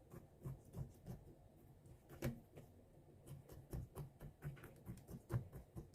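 Faint, irregular light taps and clicks of hand work as salt is worked into a cut-open orange, with one sharper tap about two seconds in.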